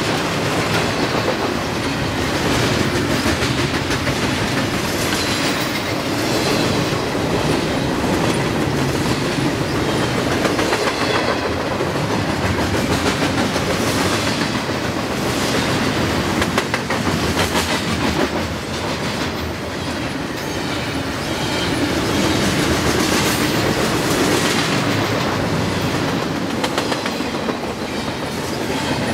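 Double-stack container train passing close by, its well cars rolling past with a steady rumble and repeated clacks of wheels over rail joints.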